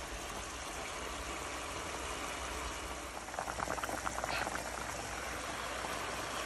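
Chicken adobo simmering in a pan, a steady bubbling hiss. A little past three seconds in comes about a second of rapid bubbling from a pot of tinola soup at a hard boil.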